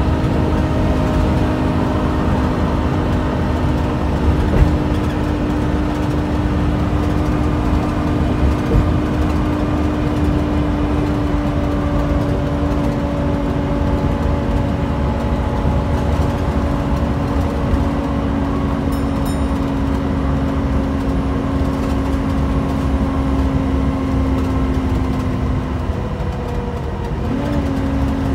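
Volvo B7TL double-decker bus's six-cylinder diesel engine pulling at a steady cruise, heard inside the upper deck with a constant road and body rumble. The engine's drone sinks slowly in pitch, then dips and picks up again near the end.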